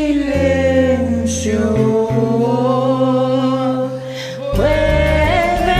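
Music: a slow Spanish-language ballad, the singer drawing out the word 'silencio' in one long gliding note over low, sustained accompaniment. About four and a half seconds in, the accompaniment fills out and a new sung note begins.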